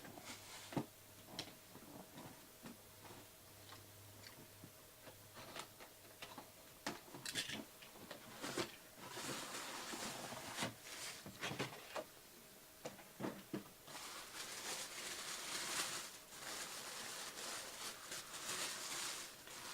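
Hands opening packaging: scattered clicks and taps, then longer stretches of crinkling and rustling about nine seconds in and again from about fourteen seconds.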